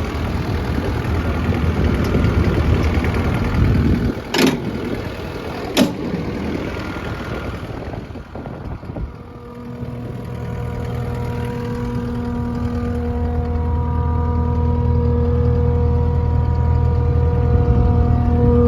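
Kubota 3.8-litre diesel engine of a Takeuchi TL12 tracked skid steer idling, with two sharp knocks about four and a half and six seconds in. After about nine seconds the running sound turns steadier and duller, with a steady hum.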